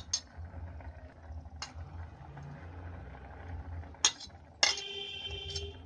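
A spoon clinking against a steel cooking pot of kheer as dry fruits are stirred in: a few sharp clinks, the last of them, near the end, ringing on for about a second, over a low steady rumble.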